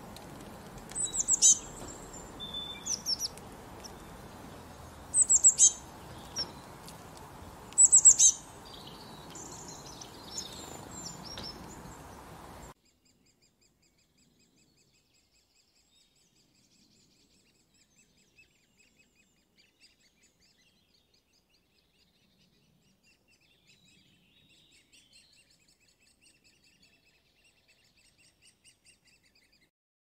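Small birds chirping and calling, with loud, sharp, high chirps about a second, five seconds and eight seconds in over a steady background hiss. About halfway through, the hiss stops and only faint, high, rapid twittering remains.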